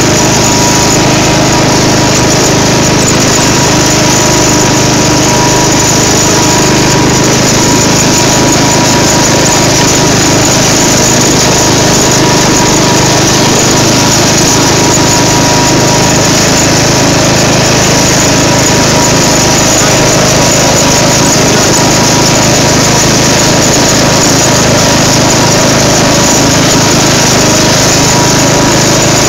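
Craftsman riding lawn tractor's engine running steadily while driving over rough ground, loud and close to the microphone.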